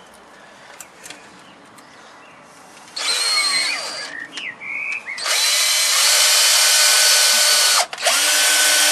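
Cordless drill driving screws through timber battens into a shelf frame: a few quiet seconds of handling, then a short run that slows down, a couple of quick bursts, and two longer steady runs with a brief break between them near the end.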